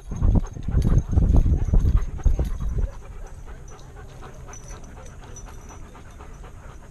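A dog-mounted action camera thumping and bumping with the dog's moving stride. About three seconds in the jostling stops, leaving the dog panting close to the microphone.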